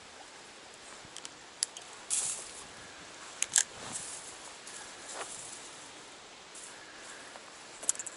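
Scattered sharp clicks and short rustles from an angler moving and handling his fishing gear, over a steady hiss.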